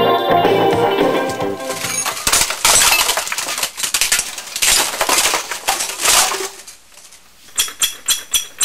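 Music fading out into a run of clattering, clinking crashes like glass and hard junk tumbling, then a quick series of bright ringing notes near the end.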